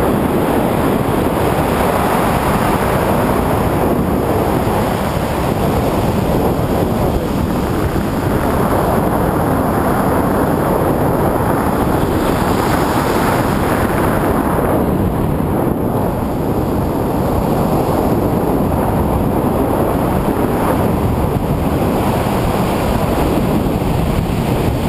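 Steady, loud wind on the microphone from the airflow of a paraglider in flight.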